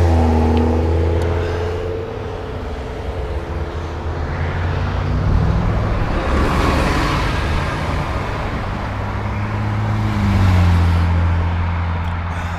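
Road traffic passing close by: a steady low engine hum with vehicles going past, one about six seconds in and another near the ten-second mark whose engine note drops in pitch as it passes.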